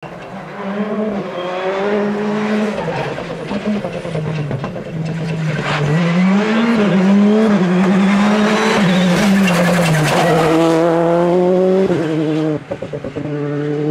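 Rally car engine running hard through a bend, its revs rising and falling with throttle and gear changes, with a brief drop in loudness near the end.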